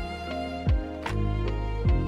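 Music with sustained held notes over a slow, steady, deep drum beat.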